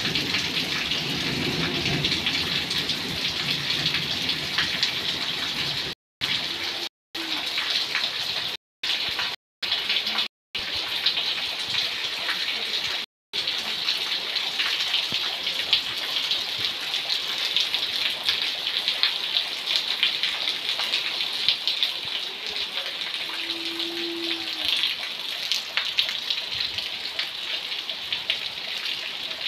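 Heavy monsoon rain pouring onto a flooded, muddy yard: a steady, dense hiss of countless drops. The sound cuts out completely for moments a few times partway through.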